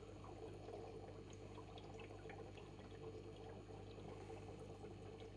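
Faint aquarium water trickling with scattered small drips, over a steady low hum from the tank's equipment.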